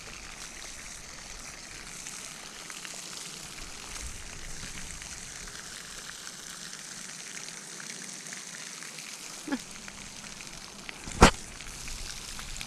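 Steady hiss of a pond fountain's spray splashing. About two seconds before the end there is a short rising squeak, and a moment later a single sharp knock, the loudest sound.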